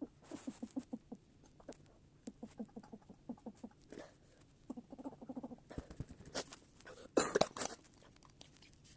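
Quick runs of soft pattering taps, about five or six a second, made to imitate walking footsteps. A few louder sharp knocks come past the middle.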